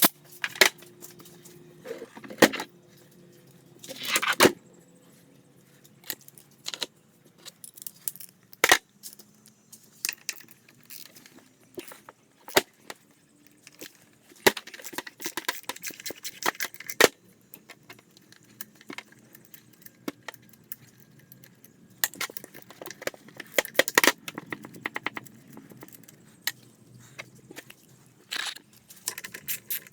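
Hand tools and metal engine parts being handled during work on a scooter engine: scattered clinks and knocks at irregular intervals, with a few longer stretches of scraping and rustling.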